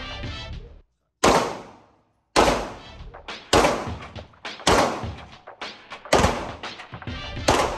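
Pistol shots fired in a steady string, six shots about a second apart, each echoing and dying away off the walls of an indoor range.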